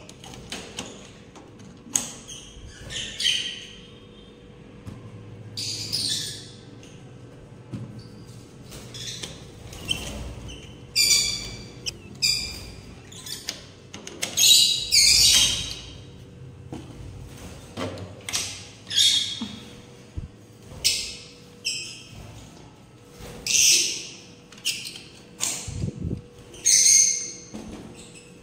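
Caged pet birds calling over and over: short, shrill calls of about half a second each, coming every second or so, over a faint steady hum.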